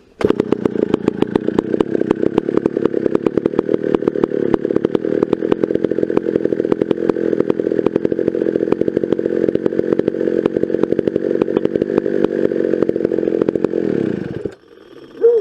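McCulloch 650's 87 cc two-stroke reed-valve chainsaw engine running with a rapid, even beat, running smoothly, then cutting off suddenly near the end.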